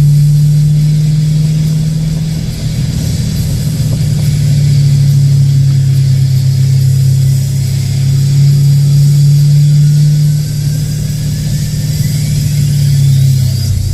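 Vehicle engine running hard with a steady drone, its pitch dipping and rising with the throttle. A faint whine climbs in pitch near the end.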